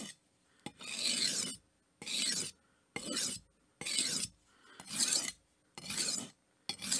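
Kitchen knife blade stroked across the fine side of an oiled sharpening stone: about seven separate gritty scraping passes, roughly one a second, each pushed edge-first into the stone.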